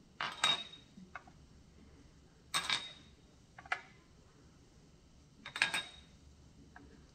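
Seasoning containers and small dishes being moved and set down on a kitchen counter: three short clinking clatters about three seconds apart, each with a brief ring, and lighter clicks between them.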